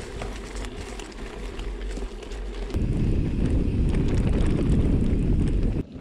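Wind buffeting an action camera's microphone as a mountain bike rolls over a dry, stony trail, with small ticks and rattles from the tyres and bike. The rumble jumps much louder about halfway through, then cuts off abruptly just before the end.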